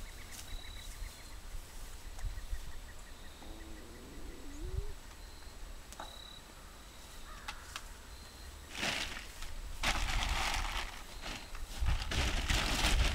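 A sack rustling and crinkling loudly as it is handled, in bursts from about nine seconds in and again near the end, over a steady low rumble of wind on the microphone and a few faint bird chirps.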